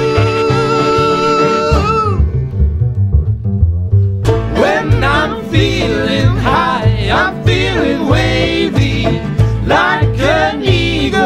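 Live bluegrass-style acoustic band music: a harmonica holds a long note that bends and drops out about two seconds in, then after a brief thinner stretch banjo, acoustic guitar and upright bass pick up a driving steady beat, with voices singing over it.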